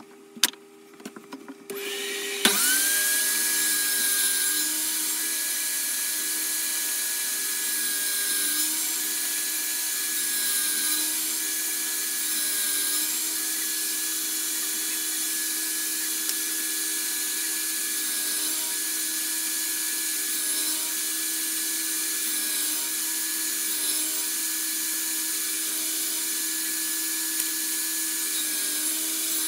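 Table saw switched on about two seconds in after a click or two, its motor spinning up and then running steadily with a high whine.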